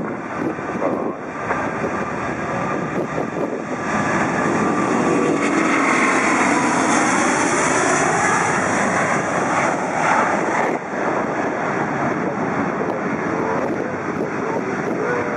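Airbus A380-800's four Rolls-Royce Trent 900 turbofans at takeoff thrust as the aircraft rolls, lifts off and climbs past: a loud, steady jet roar that swells about four seconds in. A phasing whoosh sweeps down and back up in pitch as it goes by.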